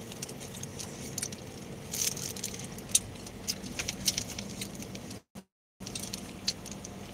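Car cabin noise while driving: a steady low hum with many scattered sharp clicks and crackles. The sound cuts out completely for about half a second, roughly five seconds in.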